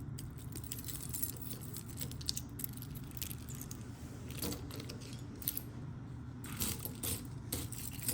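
Costume jewelry pieces clinking and rattling as they are picked through and sorted by hand: scattered light clicks over a steady low hum.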